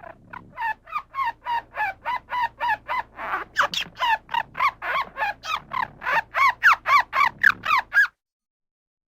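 Squirrel chatter: a long run of short, harsh calls, about three a second, each bending up and down in pitch, growing louder and then cutting off abruptly about eight seconds in.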